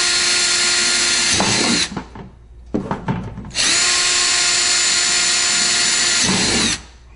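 Electric drill boring two holes through a plastic kayak hull: a steady high motor whine that sags in pitch as the bit breaks through and stops about two seconds in, a few clicks, then the second hole drilled the same way, stopping near the end.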